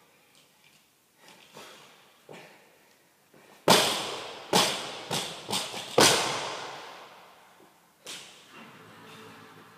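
Loaded barbell with 20 kg Eleiko plates dropped after a deadlift onto a rubber gym floor. A loud bang about four seconds in is followed by five quicker bounces over about two seconds, each ringing out in a large hall, and one more thud near the end.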